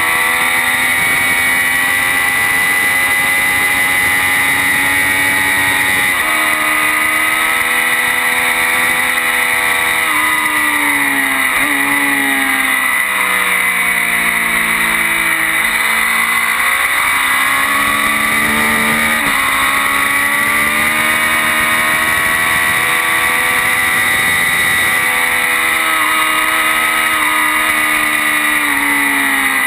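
Triumph Daytona 675's three-cylinder engine running hard on track, heard from an onboard camera with wind noise on the microphone. The revs step at several gear changes, sink through the middle and climb again.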